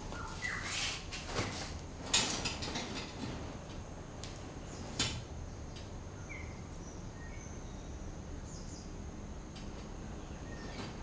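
A few faint bird chirps over quiet room tone, broken by two sharp knocks, about two seconds in and about five seconds in, the first the louder.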